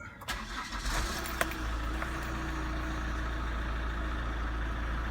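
Holden Captiva diesel engine starting: it catches about a third of a second in, runs unevenly for a second or so, then settles into a steady idle.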